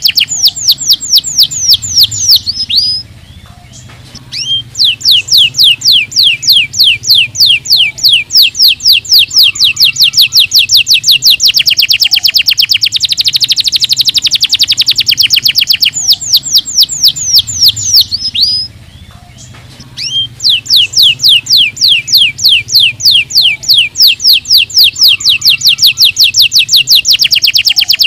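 Domestic canary singing loud, fast trills of rapidly repeated down-sweeping notes, with two short breaks between phrases.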